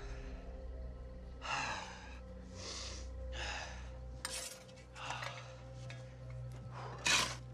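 A man breathing hard in heavy gasps and sighs from the exertion of digging. Short sharp noises about four seconds in and, loudest, about seven seconds in, over a low steady drone.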